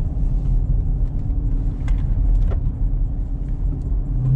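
The 2018 Jeep Trackhawk's supercharged 6.2-litre V8 running steadily at low revs with a deep, even rumble, with a few faint clicks over it.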